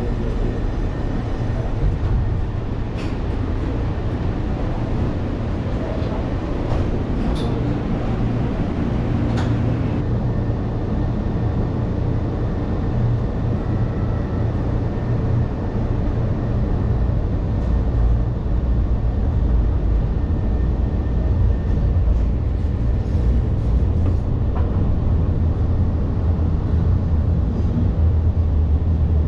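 Calgary C-Train light rail car running, heard from inside the car as a steady low rumble, with a few faint clicks in the first ten seconds.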